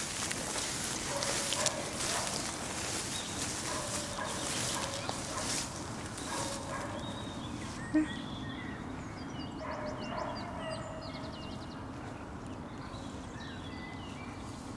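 Outdoor meadow ambience: rustling and wind noise with footsteps through long grass, loudest in the first half and then quieter, and faint birdsong throughout. A single sharp knock about eight seconds in.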